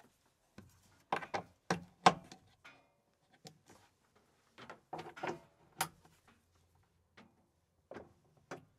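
XLR cables being handled and their plugs pushed into the input sockets on the backs of powered studio monitors: a series of short clicks and knocks in several clusters, with cable rubbing between them.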